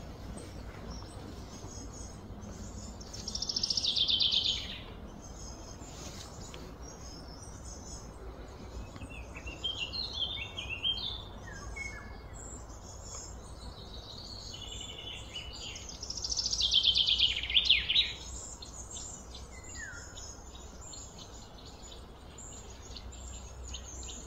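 Songbird singing outdoors: two loud, fast trills that fall in pitch, about three seconds in and again about sixteen seconds in, with shorter chirps between them, over a faint steady background noise.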